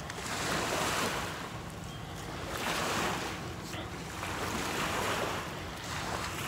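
Small waves washing against the shore, the wash swelling and fading every couple of seconds, with some wind.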